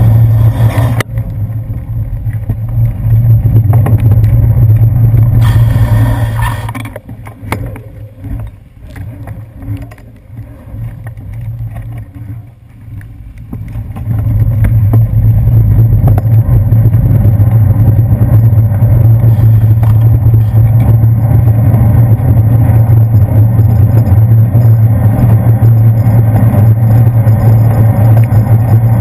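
Loud, steady rumble of wind and road vibration on a handlebar-mounted GoPro Hero 2 as a bicycle rides over wet pavement. It fades for several seconds in the middle, then comes back steady.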